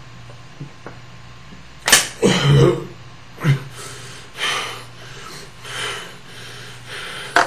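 A man's short, noisy breaths, several in a row starting about two seconds in, just after a sharp click.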